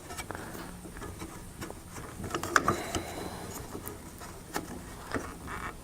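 Small flathead screwdriver scraping and clicking against the rear wiper arm's metal retaining spring and plastic cover as the spring is pried back: scattered light clicks, with a cluster of sharper ones a little past halfway.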